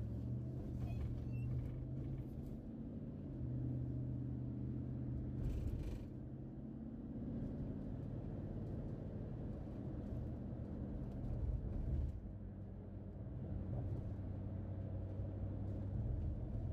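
Steady low rumble of a car's engine and road noise, heard from inside the cabin while driving, with a short hiss about five seconds in.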